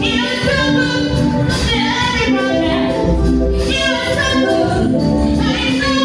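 Music: a group of voices singing together over a steady instrumental accompaniment.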